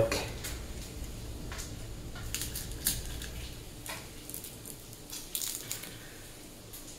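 Garlic cloves being broken off the bulb and peeled by hand: faint, irregular crackles of papery garlic skin with scattered small clicks.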